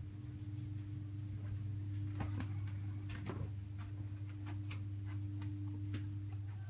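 Quiet room with a steady low hum and a scattering of short, soft clicks and taps.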